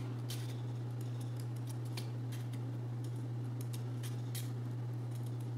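Small scissors snipping slits into two layers of cardstock petals held together: a series of quick, small snips over a steady low electrical hum.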